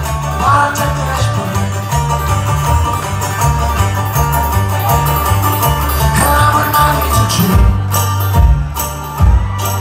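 Live string-band bluegrass: a cello played as the bass, acoustic guitar, mandolin and banjo, with a walking bass line. Singing comes in around the start and again about six seconds in, and heavier stomping beats join near the end.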